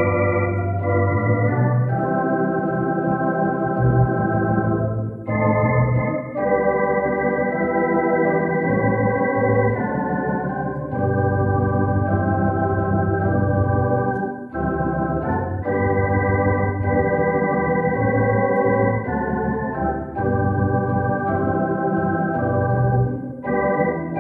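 Organ playing slow, sustained chords over a bass line, changing chord every second or two, with brief breaks between phrases.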